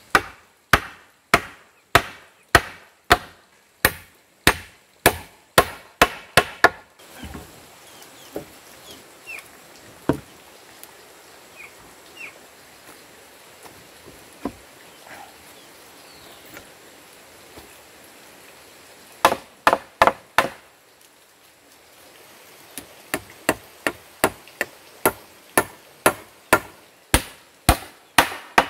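Hammer striking a sawn-timber post-and-rail frame, sharp blows about two or three a second. The hammering stops for a long pause with only a few single knocks, comes back in a quick flurry, then settles into steady blows again.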